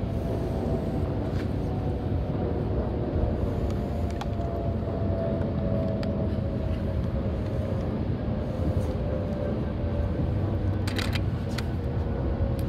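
Distant jet airliner climbing out after takeoff: a steady low rumble with faint engine tones slowly falling in pitch.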